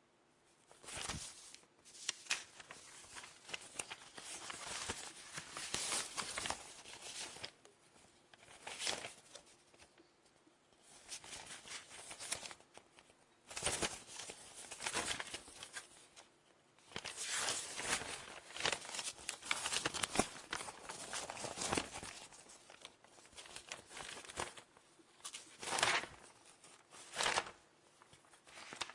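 Paper being fumbled and handled: irregular bouts of crinkling and rustling, some lasting several seconds, broken by short pauses.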